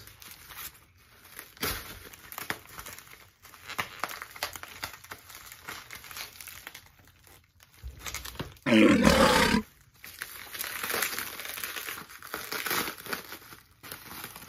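Bubble wrap and plastic film crinkling and rustling as they are pulled off a potted plant. About nine seconds in there is one loud, harsh sound lasting under a second.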